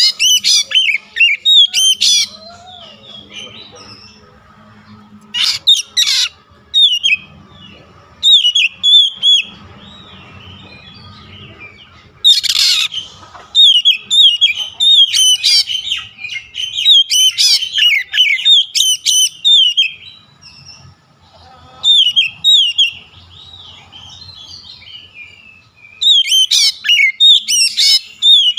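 Oriental magpie-robin (kacer) singing loud bursts of quick, varied whistled notes and chatter, broken by short pauses, with one longer unbroken run of song midway.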